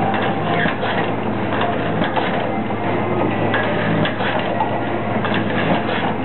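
Bicycle wheel lacing machine running with a steady hum, under frequent quick clicks and metallic clatter as steel spokes are threaded through the hub and rim.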